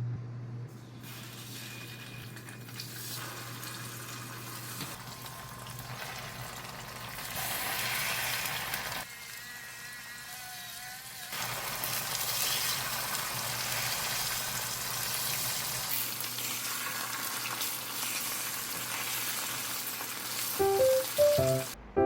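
Food sizzling in a hot frying pan, a steady crackling hiss that dips briefly about nine seconds in, with background music underneath.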